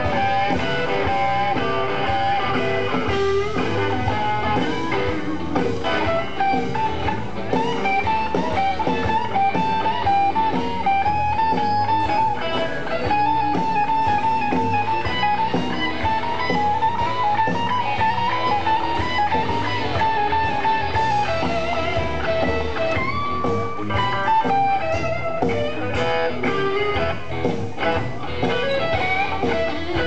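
Live blues band playing an instrumental passage, with an electric guitar playing a lead melody of bent notes over the drums and the rest of the band.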